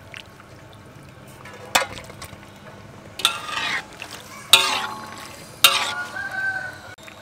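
A wire-mesh skimmer and a metal ladle scrape and clank against a large metal wok, lifting boiled button mushrooms out of hot water. There are four strokes, one of them a longer scrape, and the last leaves a ringing tone that trails off.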